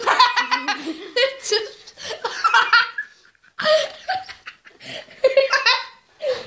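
People laughing hard in several bursts, with short pauses between them.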